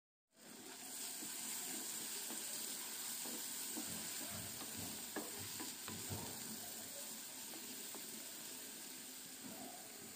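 Chopped onion, herbs and spices sizzling in olive oil in a nonstick frying pan with a steady hiss, stirred with a wooden spatula that scrapes and knocks against the pan, the knocks mostly in the middle.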